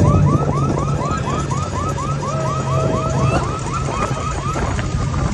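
A rapid, regular chirping, about four short rising chirps a second, stops about three and a half seconds in. Under it the parasailing tow boat's engine drones steadily.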